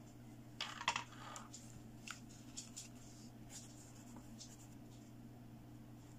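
Hands handling a plastic fashion doll and its cloth dress: a short burst of rustling and clicks about a second in, then scattered light taps and ticks.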